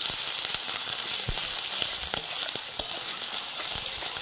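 Ginger, chilli and garlic paste sizzling in hot oil in a metal kadai as it is stirred. A metal spatula scrapes and knocks against the pan in irregular clicks over the steady frying hiss.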